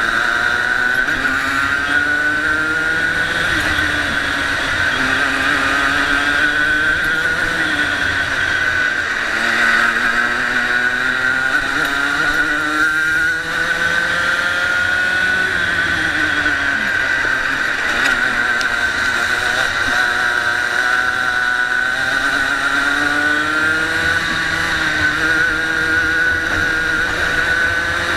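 Racing kart engine heard from on board at race speed, its pitch climbing along each straight and dropping away into each corner, several times over.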